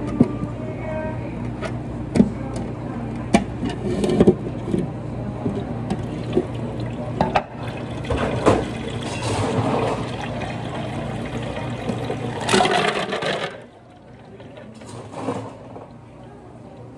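Work sounds behind a café counter: a steady machine hum under scattered clinks and knocks of cups and utensils, the hum stopping abruptly near the end.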